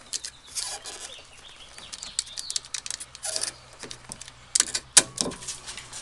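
Utility knife slicing through a rubber exhaust hanger in short, scraping strokes with irregular clicks. There is a sharp knock about five seconds in, as the hanger gives way.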